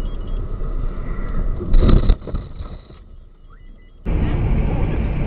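A car's road and engine rumble, with a loud crash-like impact about two seconds in. After a quieter stretch the sound switches abruptly to another steady road rumble about four seconds in.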